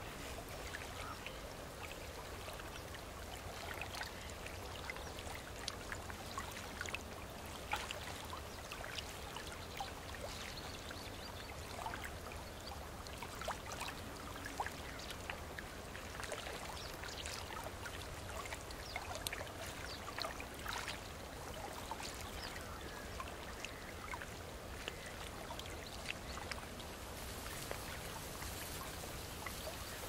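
Water trickling and splashing gently, a steady wash dotted with many small scattered drips and splashes, over a low steady rumble.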